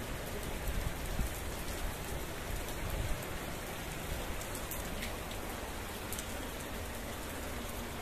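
Steady monsoon rain falling: a dense, even hiss of drops spattering on the ground, with an occasional single closer drop ticking.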